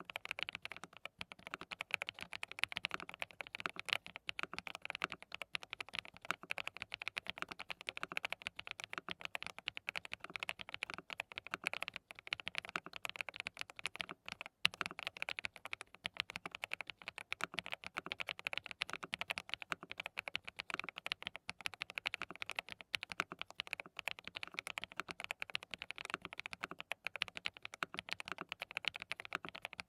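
Continuous rapid typing on a DT35 87-key custom mechanical keyboard with hand-lubed Qsenn Mint V1 linear switches: a dense, steady stream of keystrokes, many a second.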